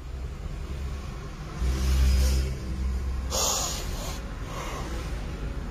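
Low rumble of a car's engine and road noise heard inside the cabin, swelling for about a second near two seconds in, with a short hiss a little after three seconds.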